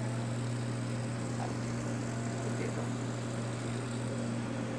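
Steady low mechanical hum with a fainter higher tone, unchanging throughout.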